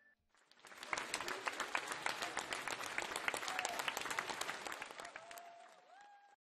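Crowd applauding: many hands clapping together, starting about half a second in and thinning out near the end.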